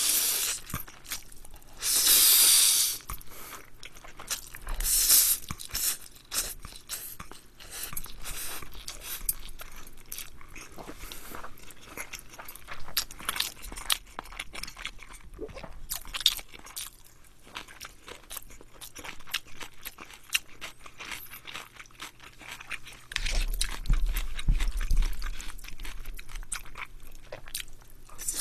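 Loud, close-miked slurping of spaghetti noodles in a few long pulls near the start, then steady wet chewing with small smacks and clicks of the mouth.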